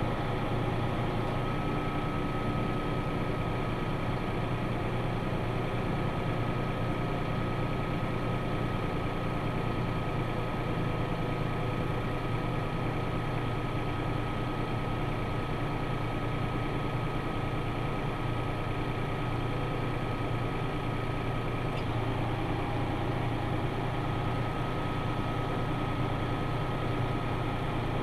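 Tractor engine running steadily, with a faint steady high whine over it.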